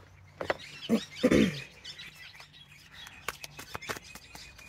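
An oracle card deck being shuffled by hand, a run of light clicks and flicks of the cards, with birds chirping.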